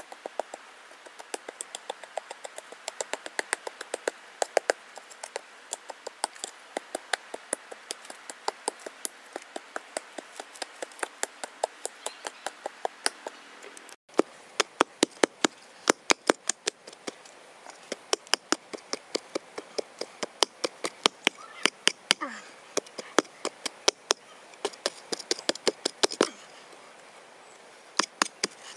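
Small hand pick chopping into earth in quick, regular strikes, about two to three a second, each a sharp tap. The strikes get louder about halfway through and pause briefly near the end.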